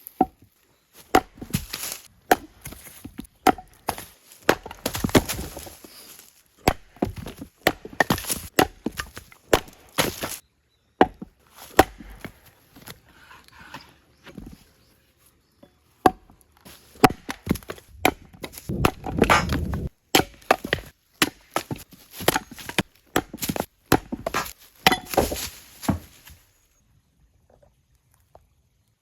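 An all-steel forged axe splitting firewood: a long series of sharp chops into logs at an irregular pace, some followed by the crack and clatter of split wood. The chopping stops near the end.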